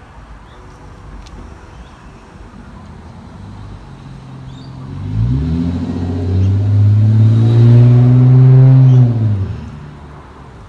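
A motor vehicle's engine comes up loud, rising in pitch over about a second. It runs steady for about three seconds, then drops in pitch and fades away.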